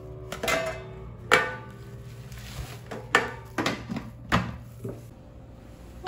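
Several sharp clinks and knocks, each with a brief ring, as the stainless steel pot, steamer insert and glass lid of a small electric cooker are handled.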